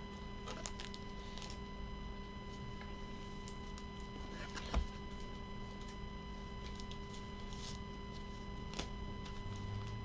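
Low steady electrical hum of several fixed tones, with a few faint scattered clicks and one soft knock a little before halfway.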